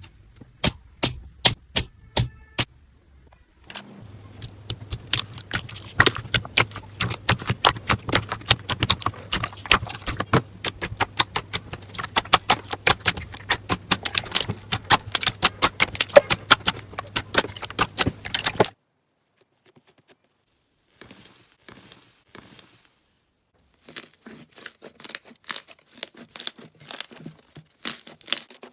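Slime being squeezed and pressed by hand, making rapid sharp crackling clicks and pops. The clicking stops abruptly about two-thirds of the way through, nearly stops for a few seconds, then starts again near the end.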